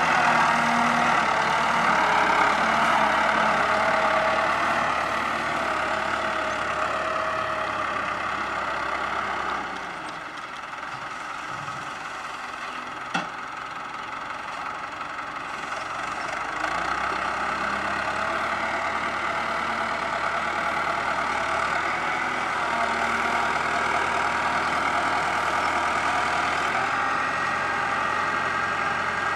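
Engine of a sugarcane grab loader running as the loader drives and lifts a load of cane. It gets quieter about a third of the way in and louder again after the middle, with a single sharp click near the middle.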